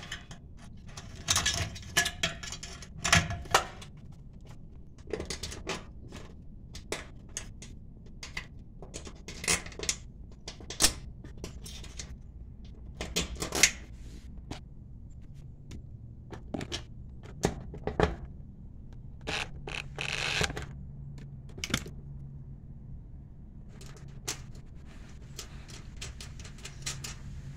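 Irregular small clicks, taps and light metallic rattles as a range cord's wires and ring terminals are handled against an electric range's sheet-metal bracket and terminal block.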